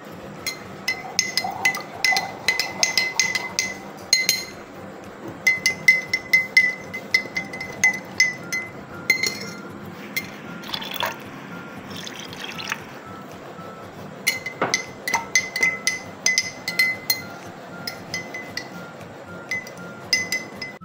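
A steel spoon stirring sugar and lemon juice into water in drinking glasses, clinking rapidly against the glass several times a second, with the glass ringing after each strike. The clinking comes in three runs, easing off for a few seconds in the middle.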